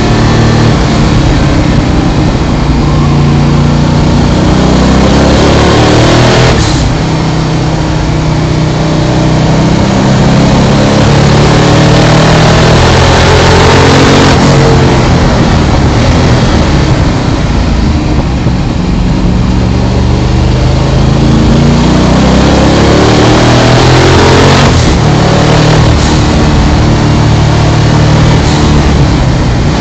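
Twin-turbo Ford Windsor 347 V8 in a Mazda FD RX7 race car, heard from inside the cabin under hard acceleration. Its note climbs and falls as the car speeds up and slows for corners, with short breaks about 7, 14 and 25 seconds in.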